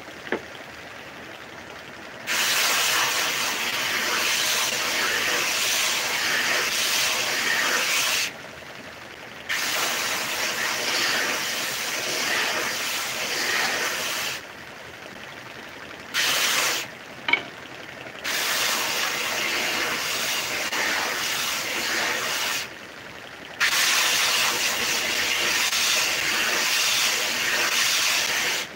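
Homemade belt sander grinding wooden pieces pressed against the moving belt: a loud rasping hiss in four long passes and one short one, dropping to a quieter level between passes.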